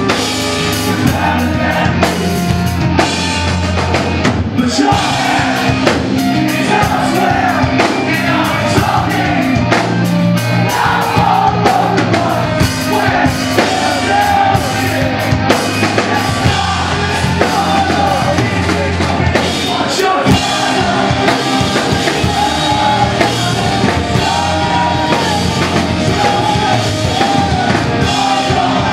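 A post-hardcore rock band playing loud, live, with a drum kit driving under a sung lead vocal.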